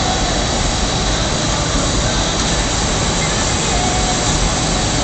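Gas burner flame rushing steadily as it heats the hot glass on the blowpipe: a loud, even noise that does not change.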